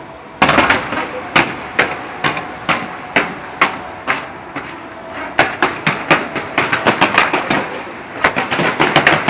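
Fireworks bursting in quick succession, a string of sharp bangs each with a short echoing tail, coming faster and denser in the second half.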